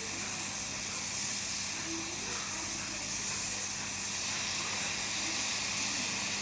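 Hot-air rework blower running with a steady hiss of air and a faint low hum beneath it, heating a phone motherboard to melt the solder holding a soldered part so it can be lifted off.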